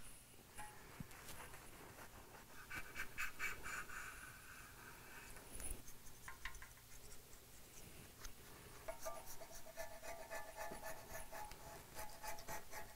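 Green plastic gasket scraper rasping old gasket residue and oil off an engine block's oil-pan rail in quick short strokes. The scraping comes in two spells, the second with a faint squeak.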